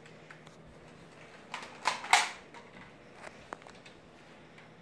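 Three quick sharp clacks about a second and a half to two seconds in, the last the loudest, then two faint clicks: a Nerf foam-dart blaster being worked and fired.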